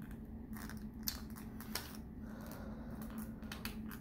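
Scattered small clicks and light scrapes of a hard plastic coin case being handled and pried at, over a steady low hum.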